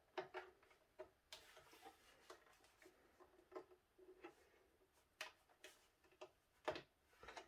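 Faint, irregular plastic clicks and light rustling of PC power supply cables being handled and plugged in, about nine small ticks spread unevenly.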